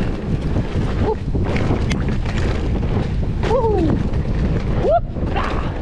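Wind buffeting an action camera's microphone over the rumble and rattle of a mountain bike rolling down a rough dirt trail. A short falling pitched slide about three and a half seconds in and a brief rising one near five seconds cut through the noise.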